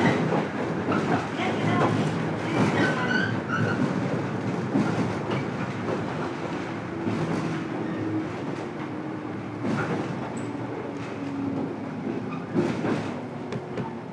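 Running noise heard inside a JR 103 series 1500-subseries electric motor car: a steady rumble with wheel clatter over rail joints, slowly getting quieter as the train slows.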